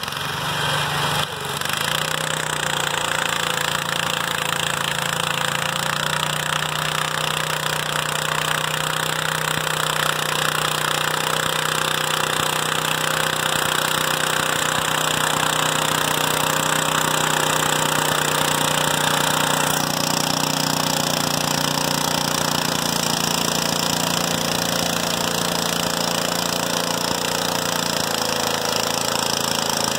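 International Harvester Cub Cadet garden tractor's engine running at a steady, even speed while pulling a weight sled.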